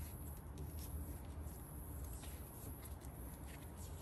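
Faint rustling and light clicks of hands wrapping tape around engine wiring, over a low steady hum and a high steady drone of insects.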